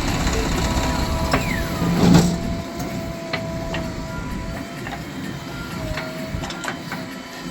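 Heavy machinery engine running, with a thin steady squeal, scattered metallic clicks and clanks, and one loud thump about two seconds in.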